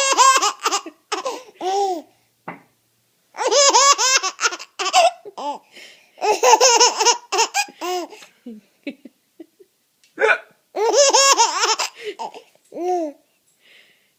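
A baby girl laughing uncontrollably in four long, high-pitched bouts with short pauses between, delirious with tiredness; the laughter is set off by a man's imitated hiccups.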